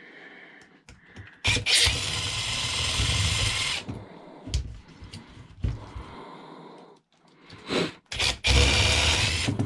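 Power drill running in two bursts, the first of about two seconds starting about a second and a half in and the second near the end, backing out fasteners; a few short clicks between.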